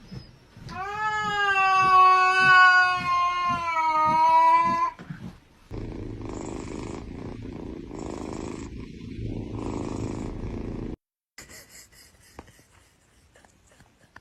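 A cat's long, drawn-out meow lasting about four seconds, followed by a cat purring for about five seconds. The purring cuts off suddenly, and only faint ticks remain near the end.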